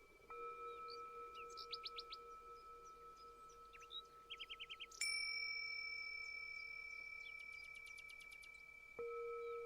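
Meditation bells struck three times, about a third of a second, five seconds and nine seconds in, each ringing on and slowly fading; the middle strike is the loudest. Birds chirp in short rapid trills between the strikes.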